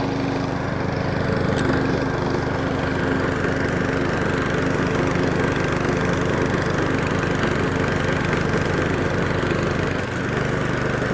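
Powersmart DB8621SH self-propelled lawn mower's 209cc four-stroke overhead-valve engine running steadily while mowing and mulching grass, with a brief dip in level about ten seconds in.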